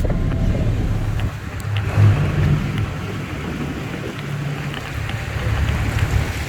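Hurricane wind and rain: a fluctuating low rumble of wind over a steady hiss of rain.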